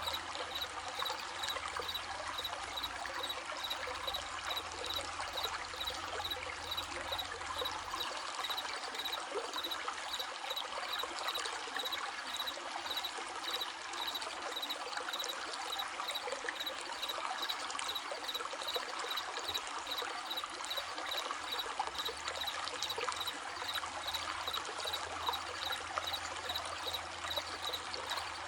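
Stream running with a steady trickling rush. Through it, crickets chirp in a high, even, pulsing rhythm.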